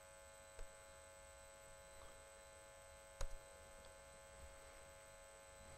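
Near silence with a steady electrical hum, broken by a small click just over half a second in and a sharper click about three seconds in.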